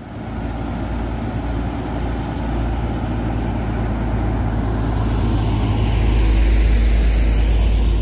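Heavy semi-trailer truck with a flatbed trailer approaching and passing close by: engine and tyre rumble growing steadily louder, loudest in the last couple of seconds as it goes past.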